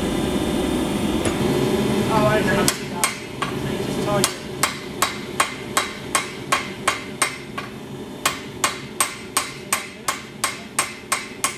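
A hand hammer striking red-hot steel held in tongs, in a steady rhythm of about two and a half sharp ringing blows a second, starting about two and a half seconds in. Before the blows, a loud steady machine noise from the shop-made press stops abruptly.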